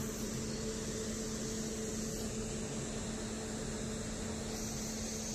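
Steady running noise of a MEMU electric train heard from on board, with a steady electrical hum underneath.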